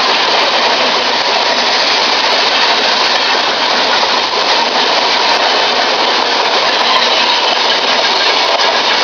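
Passenger train coaches passing close by at speed: a loud, steady rush of steel wheels on rail.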